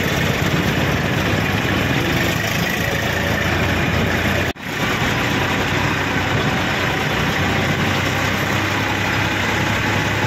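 Diesel tractor engine running steadily, heard from on board the tractor and its trailer. The sound drops out sharply for a moment about four and a half seconds in, then resumes.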